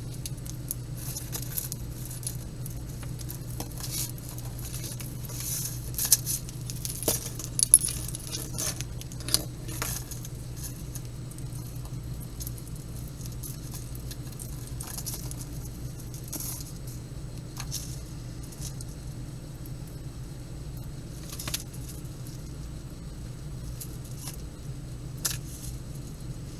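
Small metal jewelry chains clinking and jingling as knotted necklaces are picked apart by hand, in scattered sharp clicks that bunch up in the first ten seconds and then come only now and then. A steady low hum runs underneath.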